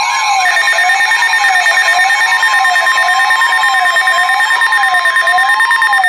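Weather radio alert tones: the steady NOAA Weather Radio 1050 Hz warning alarm tone together with a siren-like alarm that sweeps up and down about once a second. A second, higher steady beep joins about half a second in, and the tones cut off near the end.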